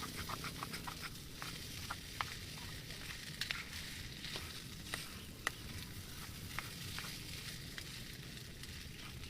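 Food sizzling as it fries in a pan, a steady hiss with scattered irregular pops and crackles.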